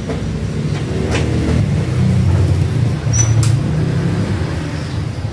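A low motor rumble that grows louder through the middle and eases near the end, with a few sharp clicks.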